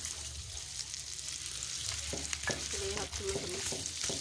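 Chicken feet in chili paste sizzling in a wok while a spatula stirs and scrapes them around the pan, with a few clacks of the spatula against the metal.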